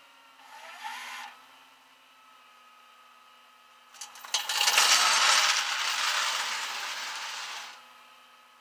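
Tie-down chain rattling close by for about three seconds, starting about four seconds in with a few sharp clinks, over the steady hum of the tow truck running.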